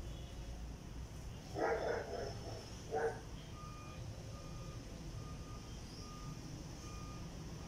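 Distant vehicle reversing alarm beeping at a steady pace, about one beep a second, starting about halfway through. Before it, two short, louder calls at about two and three seconds in.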